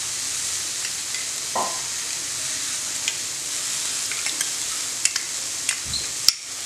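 Spice paste frying in hot oil in a non-stick pan: a steady sizzle with scattered small crackles. Whisked yogurt is poured into the frying paste a few seconds in.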